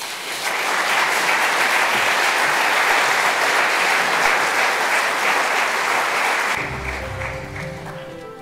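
Audience applauding. About six and a half seconds in, the applause falls away and music with a low bass comes in.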